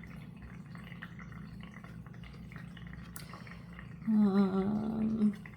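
A person's voice makes one drawn-out hum of nearly level pitch, lasting about a second, near the end, over a steady low background hum.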